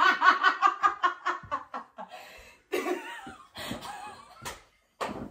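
A woman laughing hard in a quick run of bursts for about two seconds, trailing off into quieter, broken laughs, with a short sharp knock near the end.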